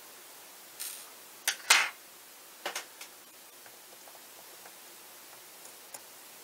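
Small metal repair tools being handled on a work surface: a cluster of sharp clicks and knocks, the loudest just before two seconds in. Faint ticks follow as a precision screwdriver tip is worked into a screw on the lens mount.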